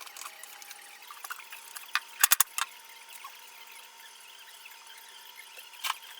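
Sharp workshop clicks over a faint steady whine. A quick cluster of three loud clicks comes about two seconds in, a fourth follows just after, and one more comes near the end.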